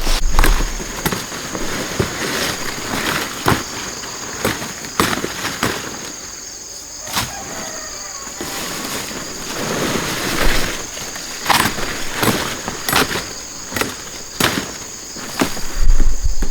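Irregular sharp snaps and rustles, a few each second, over a steady high-pitched insect drone.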